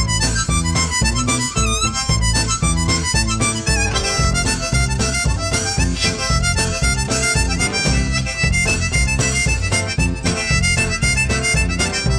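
Instrumental music with a steady beat and a melody of bent, wavering notes.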